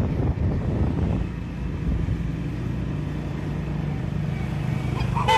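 Vehicle engine running at low speed, with road and wind rumble. A short horn toot comes near the end.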